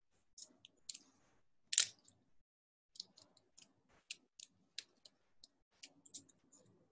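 Small, irregular clicks and taps of wooden lolly sticks and a wooden spoon being handled and bound with an elastic band, with one louder click about two seconds in.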